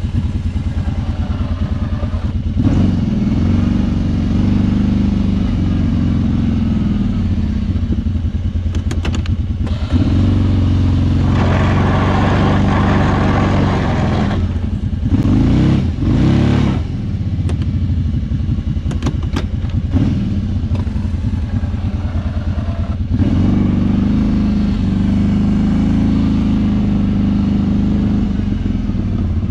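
Kawasaki Brute Force 650i ATV's V-twin engine running under load while plowing snow, revving up and easing off several times.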